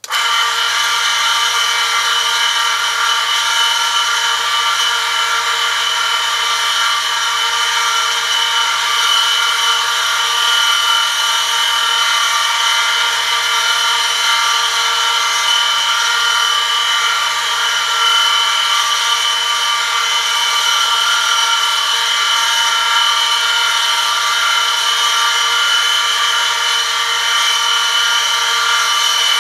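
Oil film-strength friction test rig: an electric motor switches on and spins a steel shaft against an oil-lubricated metal test sample loaded by a 1 kg weighted lever. The metal-on-metal contact gives a loud, steady, high-pitched screech over the motor's low hum, unchanging for as long as the rig runs.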